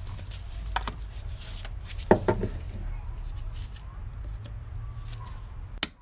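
Clicks and knocks from the metal heater hose line and its quick-disconnect coolant outlet fitting being handled and worked loose, over a steady low hum. The loudest knock comes about two seconds in, and a sharp click comes near the end.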